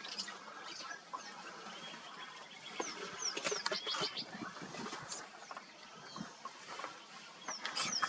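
Wild birds chirping: quick runs of short, high, falling notes about three seconds in and again near the end, over faint outdoor background.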